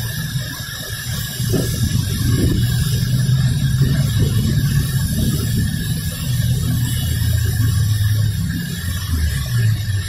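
Road traffic in heavy rain: car engines humming low as vehicles pass and idle on the flooded road, over the steady hiss of rain and tyres on wet asphalt.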